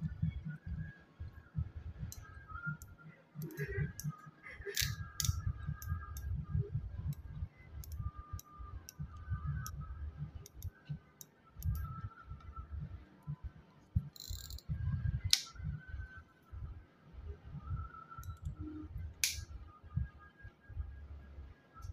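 Okuma Ceymar TGF-1000 spinning reel handled close to the microphone: scattered sharp clicks from its parts, with the loudest a few seconds apart, and frequent low bumps of fingers on the reel. A faint whirring comes and goes as the handle turns the rotor.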